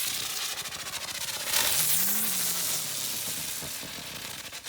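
Two lit ground fireworks hissing and crackling as they throw out sparks. The spray swells about a second and a half in, then slowly dies down.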